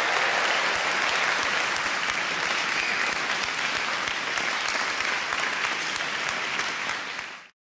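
Large audience applauding: dense, steady clapping that fades and cuts off near the end.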